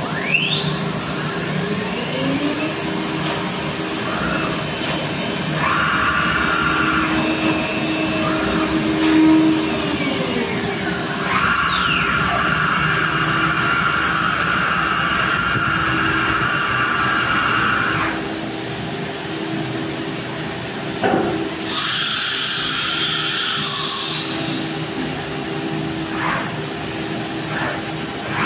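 CNC router spindle whining as it spins up at the start and winds down about ten seconds in, over a steady machine hum. Electric drill motors run in two stretches, and a short hiss of air comes about three quarters of the way through.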